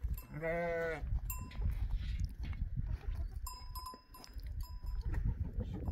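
A sheep gives one long bleat just under a second in, and small metal livestock bells clink again and again as the flock is driven along.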